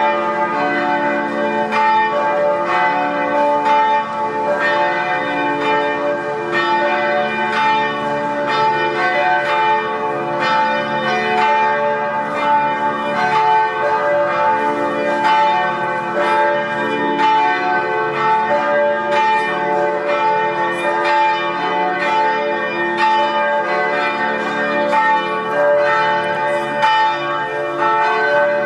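Several church tower bells pealing together, strike after strike overlapping in a continuous, steady ringing of many pitches.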